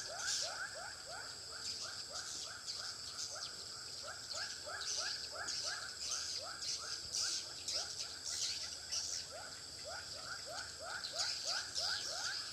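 Swiftlets chirping in a swiftlet house: a fast, even train of short rising chirps, about three to four a second, under higher scattered twittering.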